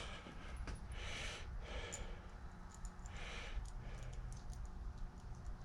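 Faint, scattered small clicks and light rustling, with a few soft hissing breaths or rubs.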